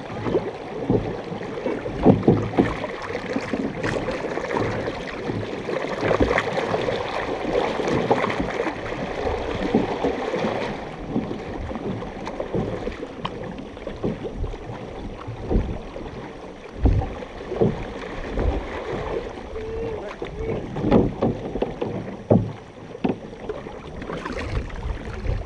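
Canoe paddles dipping and pulling through the water close by in repeated strokes, splashing, with water washing along the hull of a large multi-person canoe.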